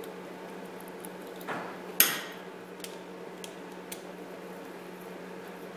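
Small clicks and clinks of a screwdriver and a plastic plug being handled on a steel workbench while the plug is wired: one sharp, loud clack about two seconds in, then a few light ticks as a terminal screw is turned.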